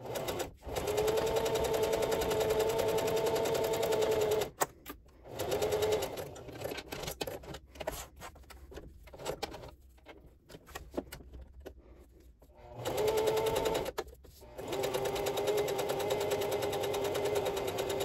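Singer electric sewing machine topstitching through canvas at a steady speed. It runs for about four seconds and gives a short burst, then pauses for several seconds with only faint handling clicks. It starts again near the end for two more runs.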